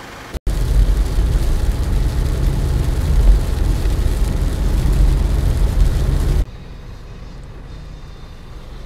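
Car interior noise while driving on a rain-wet highway: a loud, steady low rumble that drops suddenly to a quieter rumble about six seconds in.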